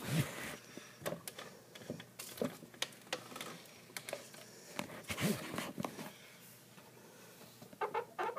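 Scattered light clicks and taps of a plastic action figure and its stand being handled.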